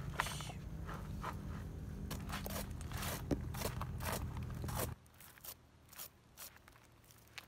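A knife blade scraping the charred skin of a roasted whole pineapple in a series of short, quick strokes. A low steady hum runs under the first five seconds and cuts off suddenly.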